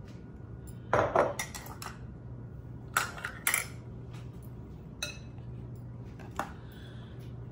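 A handful of sharp clinks and knocks as glass bowls and utensils are handled and set down on a granite countertop, the loudest about a second in and around three seconds in. A low steady hum runs underneath.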